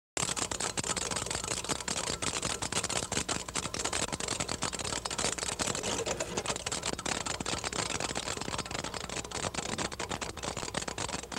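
Dense, irregular rapid clicking and crackling over a low steady hum.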